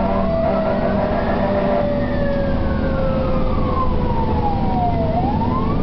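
Fire truck siren wailing from inside the cab. It rises over about two seconds, falls slowly for about three, and starts rising again near the end, with a second siren tone sliding down underneath. The truck's engine drones low and steady beneath it.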